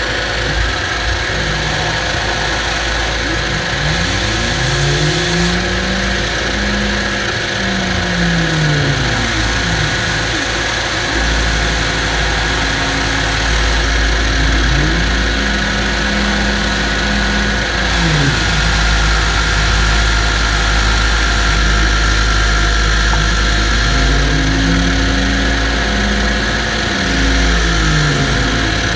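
Shop vacuum running, sucking aluminium chips off a milling machine's vise and fixture; its steady whine shifts up and down in pitch three times as the nozzle is worked over the parts.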